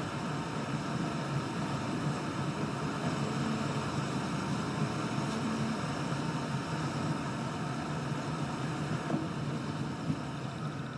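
Steady driving noise of a car heard from inside the cabin: an even rush of road and engine noise at a constant level.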